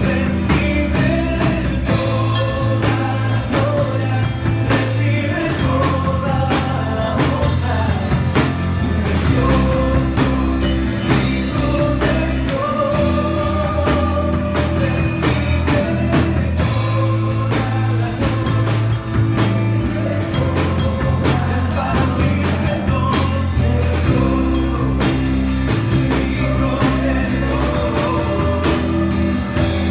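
Live worship band playing with drum kit, timbales and guitar, and voices singing over it.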